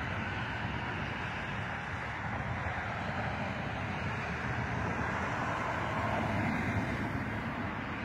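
Steady highway traffic noise: cars and vans passing, a continuous hum of tyres and engines that swells slightly about six seconds in.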